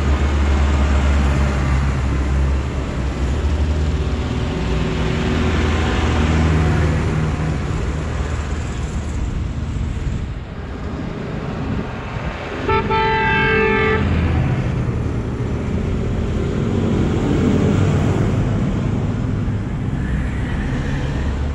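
Diesel engines of Zetor tractors running as they drive past one after another, the rumble fading and then building again as the next tractor approaches. About halfway through a horn sounds once for about a second.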